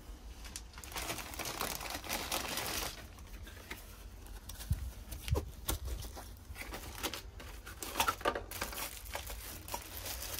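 Clear plastic bag crinkling and rustling in two bouts, near the start and again near the end, as a pool filter pressure gauge is taken out of it, with a few light knocks in between.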